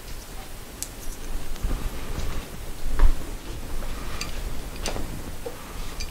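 Irregular light metallic clicks and taps from hand tools on a Moto Guzzi motorcycle fork leg, with a duller knock about three seconds in, as the threaded top piece is worked loose.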